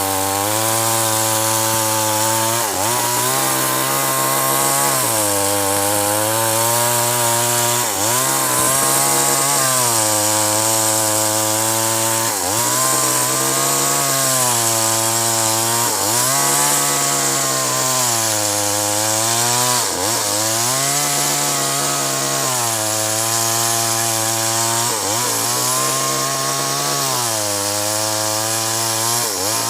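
Chainsaw running at high speed while cutting acacia wood, its engine pitch sagging under load and picking back up every few seconds as the chain bites.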